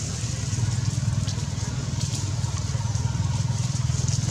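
Steady low rumble of a running engine, with a fast even flutter and no change in pitch.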